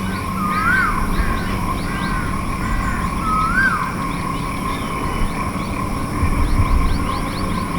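Pacific koel calling: two loud whistled notes, each rising then dropping sharply, about three seconds apart.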